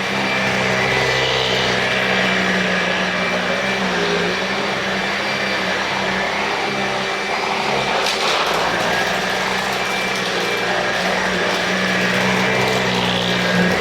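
Kärcher CV36/2 upright vacuum cleaner running on carpet with a steady motor hum and rushing airflow. There is a burst of crackling about eight seconds in as debris is sucked up.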